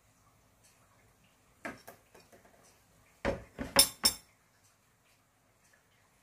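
Kitchen dishes and utensils knocking together. There are a couple of light clicks about a second and a half in, then a quick run of four or five louder clattering knocks between about three and four seconds in, the loudest near the end of that run.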